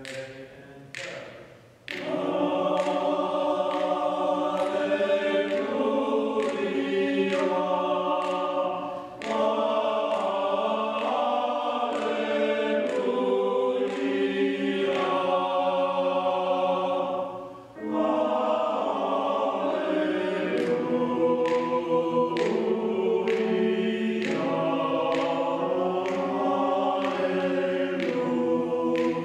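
Church choir singing a piece in parts. The voices come in together after a quieter opening moment, and there are two brief breaks between phrases.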